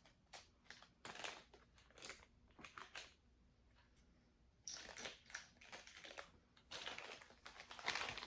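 Faint rustling and crinkling with light clicks as jewelry pieces and their packaging are handled and sorted. The sound comes in two spells, with a short lull between them.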